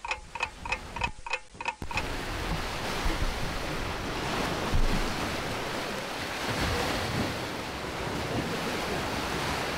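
Lake waves washing and splashing against the rocks of the shoreline, with wind on the microphone; one louder surge comes about five seconds in. It opens with a short run of pitched ticks, about four a second, that stops abruptly about two seconds in.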